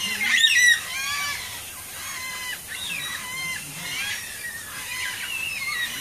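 A flock of Carnaby's black-cockatoos calling, many overlapping calls in arching, bending phrases, loudest in the first second and continuing more softly after.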